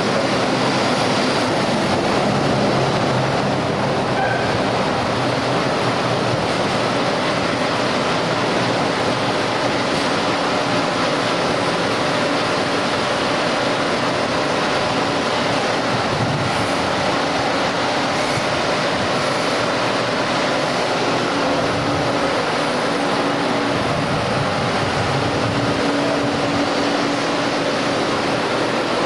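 Sleeper express train pulling into a station platform: an electric locomotive and its Series 24 type 25 blue-train sleeping cars rolling slowly past, a steady noise of wheels and running gear.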